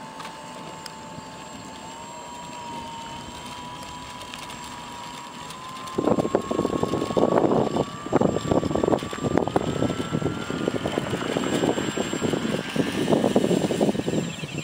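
RC model autogyro's propeller motor whining, its pitch rising steadily as it speeds up for take-off. A loud, gusty rushing noise comes in about six seconds in and stays over the whine.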